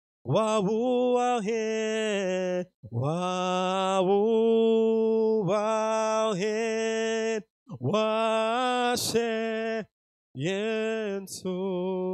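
A man's solo voice singing a slow worship chant through a microphone, unaccompanied, in four long held phrases with short breaths between them.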